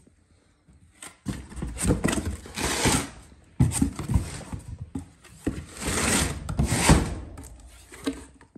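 Cardboard box flaps being pulled open and a hand rustling through plastic-wrapped packages inside, in three bursts of scraping and crinkling.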